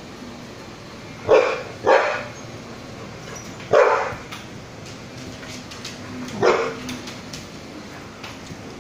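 Dog barking four short barks during play with other dogs: two quick barks about a second and a half in, another near four seconds, and a last one about six and a half seconds in.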